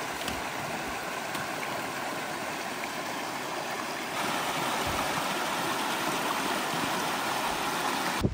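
Creek water flowing steadily, a little louder from about four seconds in.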